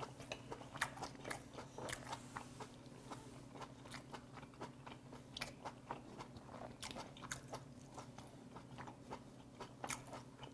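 Close-miked mouth chewing a piece of sea hare, faint irregular wet clicks and smacks several times a second. The meat chews firm and springy rather than crisp.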